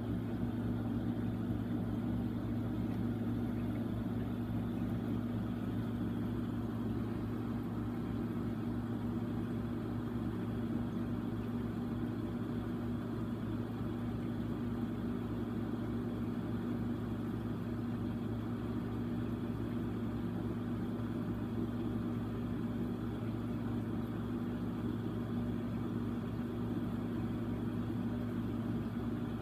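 Fish-tank pump running with a steady, unchanging low hum.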